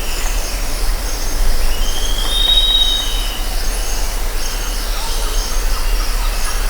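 Jungle ambience: a steady chorus of high-pitched insects trilling continuously over a background hiss. About two seconds in, a single whistled bird call rises and holds for about a second.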